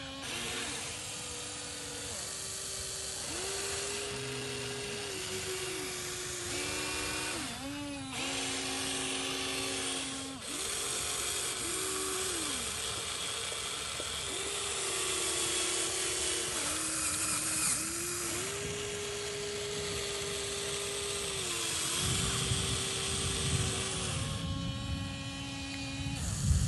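Electric motor and hydraulic pump of a radio-controlled model excavator whining, its pitch dropping and rising again and again as the boom, arm and bucket are worked under load. Rougher scraping noise joins in near the end.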